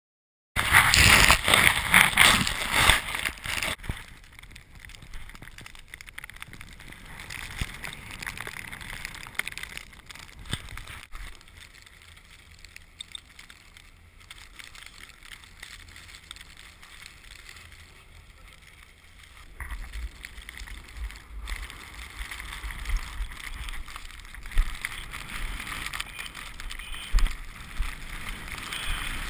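Wind rushing over the microphone and a snowboard hissing through snow as it rides. The noise is loud for the first few seconds, quieter in the middle, and turns gusty and rumbling again about two-thirds of the way through.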